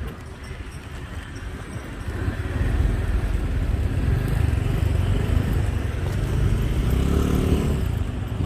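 A motor vehicle passing on the road beside the promenade: a low engine rumble that swells about two seconds in and holds until near the end, its pitch shifting as it goes by.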